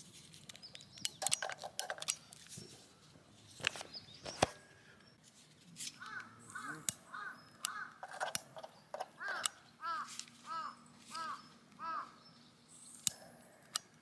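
A crow cawing, a run of about ten short calls in quick succession over roughly six seconds, after a few sharp clicks or knocks near the start.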